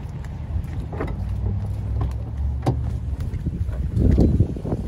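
Handling noise on a phone's microphone: rubbing and scattered knocks over a low rumble, louder for a moment about four seconds in.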